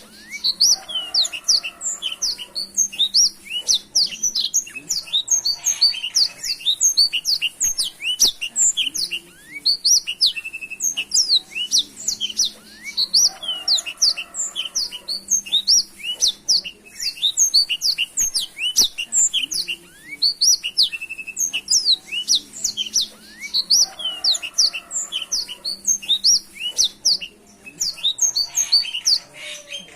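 Black-throated canary (blackthroat) singing a long, unbroken fast song of high chirps, sweeps and trills.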